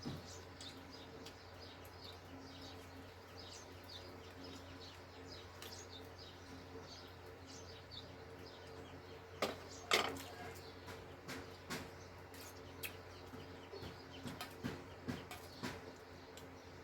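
Small birds chirping over and over against a steady low hum, with a few sharp knocks a little under ten seconds in and a scatter of lighter clicks after them.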